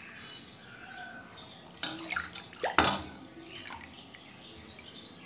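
Water dripping and splashing as a small glass bowl is dipped into and lifted out of a steel basin of water. A few sharp splashes and knocks come close together about two to three seconds in.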